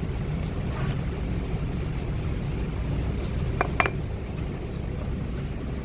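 Ford F-150 front differential giving off a steady low hum, the sign of a worn front differential bearing. Two short clicks sound about three and a half seconds in.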